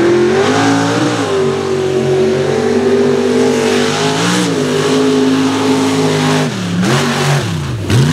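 Mud truck's engine at wide-open throttle, holding a high steady pitch as the big tyres throw mud, then dropping briefly and climbing again near the end.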